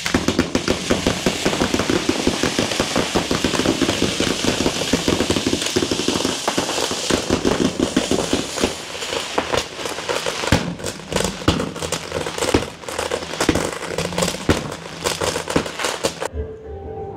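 Fireworks display going off: dense, continuous crackling and popping from firework fountains and cakes launching shells, with sharper bangs in the second half. It cuts off suddenly near the end.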